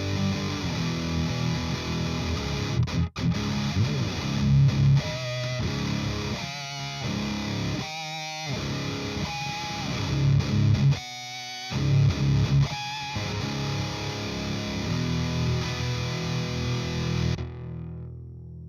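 Heavily distorted electric guitar riffing through a Driftwood Mini Nightmare amp on its second channel, with short choked stops between phrases. The sound cuts off sharply near the end.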